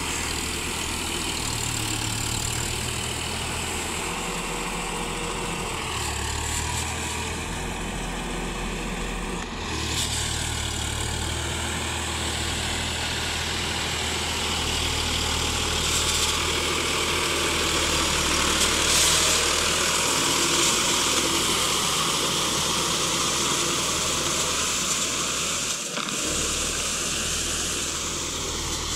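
Sonalika DI 745 tractor's three-cylinder diesel engine running steadily under load as it pulls a rotavator through flooded paddy mud, its pitch shifting slightly a few times.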